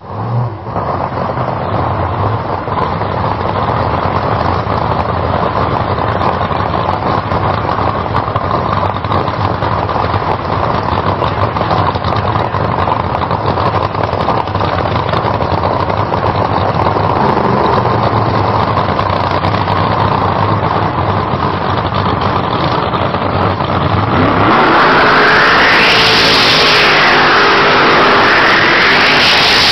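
Drag-racing engine running with a steady rumble, then about 25 seconds in it revs hard and gets louder, the engine note climbing and falling twice.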